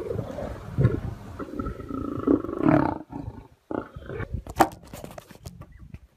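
Lions growling over a buffalo carcass as they feed on it, loudest two to three seconds in. After a brief drop, scattered knocks and clicks follow.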